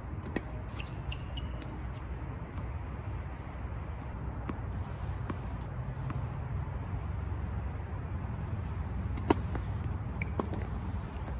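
Tennis serve: a tennis racquet strikes the ball with one sharp pop about nine seconds in, followed a second later by two fainter hits or bounces. Before it come a few faint ticks of the ball being bounced on the hard court, over a steady low outdoor rumble.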